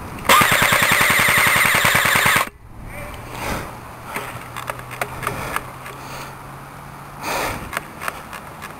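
ICS M4 airsoft electric rifle (AEG) firing one full-auto burst of about two seconds: a fast rattle of shots over the whine of its motor and gearbox, cutting off suddenly.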